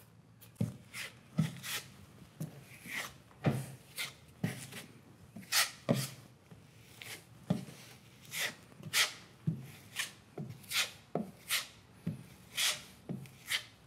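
Steel broad knife scraping and spreading air-drying joint compound over tape on a plasterboard patch, laying the base coat. Short scraping strokes come about twice a second.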